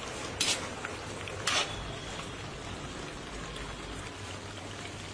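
Chicken karahi gravy sizzling and bubbling in a metal karahi, with two short scrapes of a metal spatula against the pan about half a second and a second and a half in.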